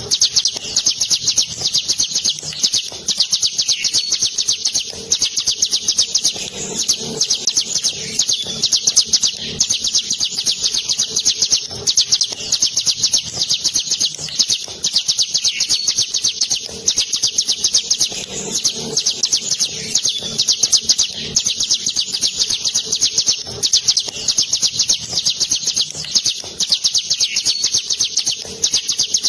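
Ciblek gunung, a caged prinia, singing a long rolling trill of very rapid, high repeated notes that runs on almost unbroken, pausing only briefly now and then.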